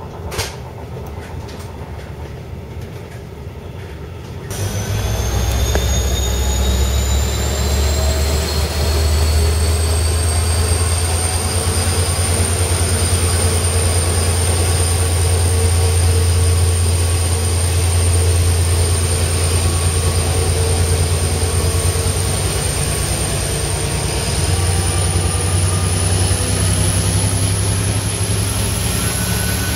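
Diesel locomotive hauling double-deck passenger coaches away from a station: a loud, steady deep engine drone with a high whine that rises slowly, levels off, and climbs again near the end. The sound starts abruptly about four seconds in, after quieter rushing noise with a single click.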